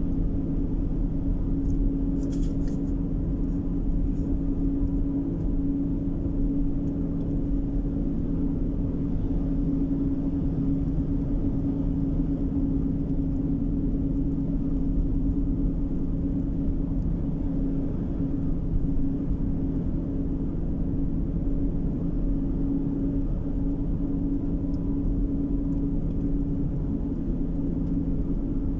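Steady in-cabin noise of a car driving at road speed: tyre and engine noise with a low, even hum that stays constant throughout.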